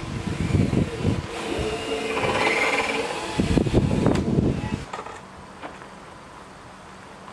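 Handheld drill running in short spurts against a wooden header overhead, with a whine in the middle, stopping about five seconds in. After that only a few faint ticks.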